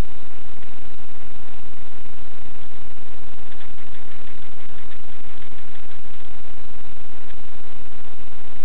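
Loud, steady hiss with a buzzing hum: electrical noise of the recording itself, with no distinct sound event.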